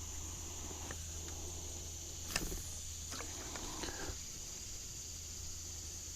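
Insects trilling steadily in one high, thin tone, with a few light clicks and knocks from handling; the sharpest click comes a little over two seconds in.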